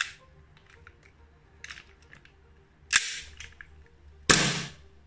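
Armorer Works HX2003 Hi-Capa gas blowback airsoft pistol fired with no BBs loaded: two sharp shots with the slide blowing back, about three and four and a half seconds in, each trailing off over about half a second, with a few light clicks before them.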